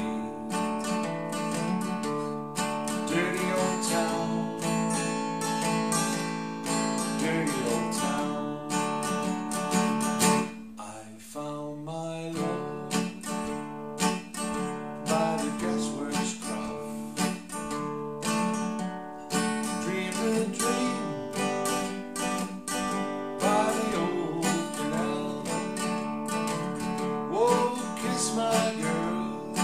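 Takamine dreadnought steel-string acoustic guitar, capoed at the second fret, strummed in a steady rhythm through C, F and G chords. The strumming thins and drops in level briefly, about ten to twelve seconds in.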